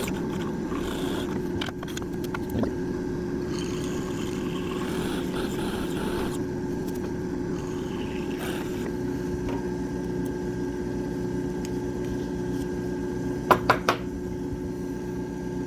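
Electric drill running steadily as it bores holes in wood, with a few sharp clicks near the end.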